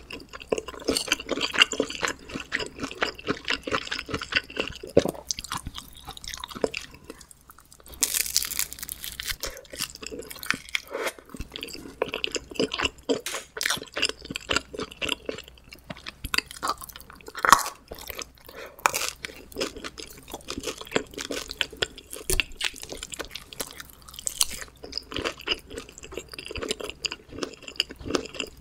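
Close-miked chewing of homemade pizza: irregular crunching bites and wet mouth sounds. There is a short lull about seven seconds in, followed by a brief hissing crackle.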